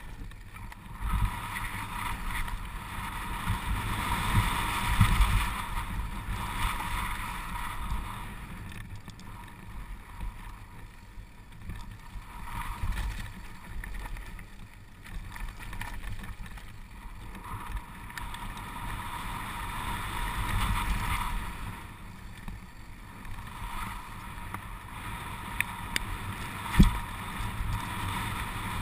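Downhill mountain bike rolling fast down a stony dirt trail: wind buffeting the camera microphone over the rattle of tyres and frame on the loose stones. There is a single sharp knock near the end.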